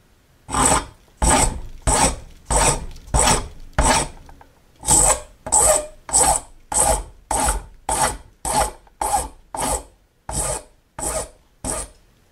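A large coarse file rasping across a small brass keyhole-escutcheon blank held in a vise, about eighteen even strokes at roughly one and a half a second, with brief pauses about four seconds in and near ten seconds in. This is rough shaping, hogging off brass to file 45-degree flats on the large end of the keyhole.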